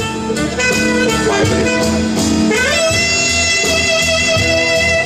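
Jazz music with a saxophone lead over a steady drum and bass beat. The saxophone plays a short phrase, then slides up into a long held note about halfway through.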